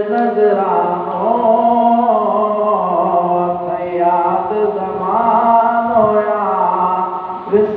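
A man singing a Sindhi naat solo into a microphone, chanting in long held notes that bend and slide in pitch, with a brief breath just before the end.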